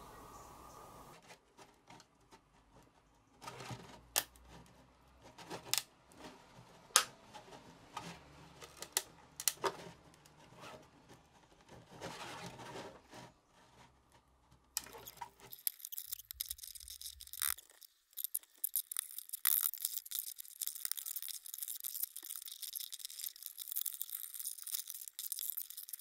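Hard plastic clicking and knocking as a 3D-printed plastic part is handled. About halfway through this gives way to a dense, continuous crackling and snapping, typical of printed support material being cracked and pried away from the part.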